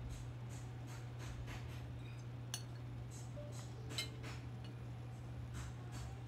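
A fork clinking and scraping on a plate of fried rice, with sharper clinks about two and a half seconds in and again about four seconds in, among faint chewing clicks. A steady low hum runs underneath.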